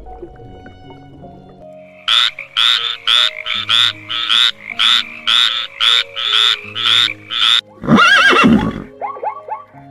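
A frog calling in a fast series of short croaks, about two to three a second. Near the end a zebra gives one loud whinnying call, all over soft background music.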